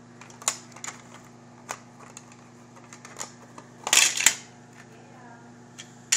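Hard plastic clicking and knocking as the pieces of a toy wrestling table are handled and pushed together, with a louder clatter about four seconds in.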